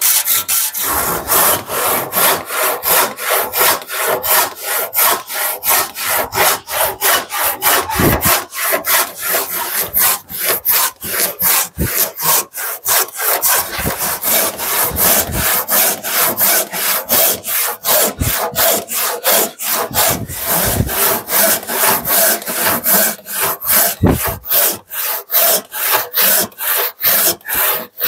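Handsaw resawing a board by hand, cutting down its length with even back-and-forth strokes, about three a second.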